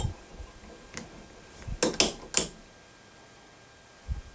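Sharp metal clicks from a hand-operated wire-bending jig as a stainless wire harness is bent on it: one click at the start, a fainter one about a second in, then three quick clicks around two seconds in. A short low thump comes near the end.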